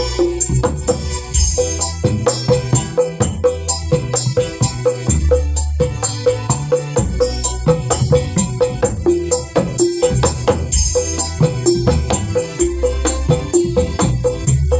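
Kendang hand drums played in a fast, steady rhythm along with a dangdut backing track, with jingling percussion and a bass line under the drum strokes.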